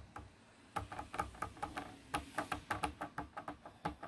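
Handheld ink pad in a plastic case being dabbed over clear acrylic stamps on a stamping platform: quick, irregular light taps, several a second, starting about a second in.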